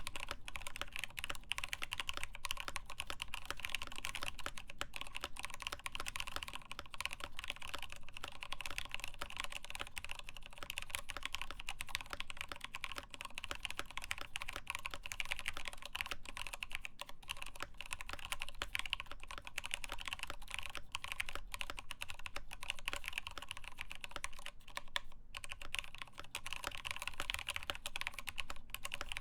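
Continuous typing on a mechanical keyboard, a CoolerMaster Masterkeys Pro S in a Norbatouch case with lubed Tealios linear switches, a full steel plate and POM keycaps: a dense, steady stream of keystrokes.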